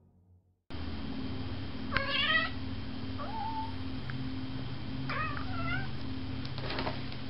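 Domestic cat meowing: a loud wavering meow about two seconds in, a short faint one after it, and another long meow about five seconds in, over the steady hum and hiss of a home recording.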